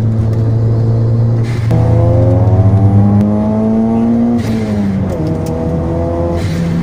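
Toyota Celica GT-Four's turbocharged 3S-GTE four-cylinder engine heard from inside the cabin, pulling hard with rising revs from about two seconds in, then dropping back a little past four seconds with a short hiss of the blow-off valve venting as the throttle closes.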